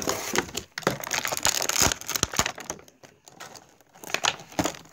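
Plastic toy packaging crinkling and crackling as it is handled close to the microphone, with sharp irregular clicks. It eases off about three seconds in and picks up again near the end.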